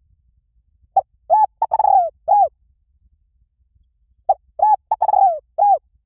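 Spotted dove cooing: two phrases of four arched coos each, one about a second in and one near the end, the third coo in each phrase the longest. It is the call used to lure doves in.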